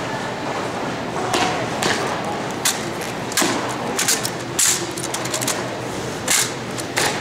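Irregular sharp slaps and knocks of exhibition rifle drill: hands striking and catching a spinning wooden-stocked drill rifle, with boot stomps on the concrete floor, several in quick succession about two-thirds of the way in.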